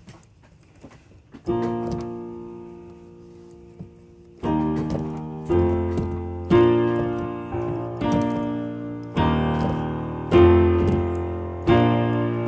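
Yamaha Clavinova CVP-79 digital piano sounding its main acoustic piano sample through its built-in speakers. A single chord about a second and a half in rings and fades. From about four and a half seconds in comes a run of full chords with bass notes, struck roughly once a second, each ringing on into the next.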